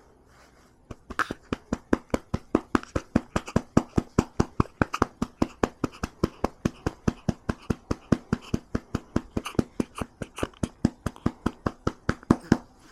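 A hand patting a baby's back to bring up a burp: an even run of pats, about five a second, starting about a second in and stopping just before the end.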